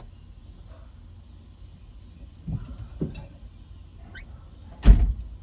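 Two light knocks, then one loud, deep thump near the end.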